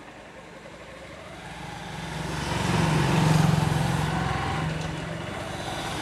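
Motorcycle engine pulling away from a stop, growing louder to a peak about three seconds in, then easing to a steadier run.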